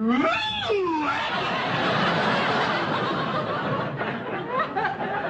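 A man's drawn-out exclamation, rising and then falling in pitch, followed by a studio audience laughing at length, the laughter thinning out near the end.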